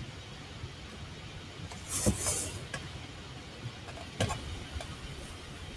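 Low steady hum with a knock and a burst of rustling about two seconds in and another sharp knock a little after four seconds, as hands pick up and handle an OpenROV underwater drone.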